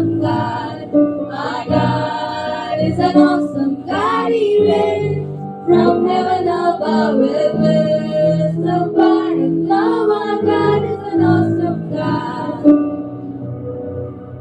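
A choir of school students singing a worship song. The singing breaks off near the end and the sound drops to a quieter held note.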